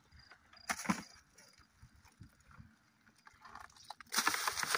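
Water splashing and sloshing in a plastic bucket as crabs are lifted out by hand, with a wet plastic bag rustling: one short splash about a second in, then quiet handling, then a louder run of splashing and crinkling near the end.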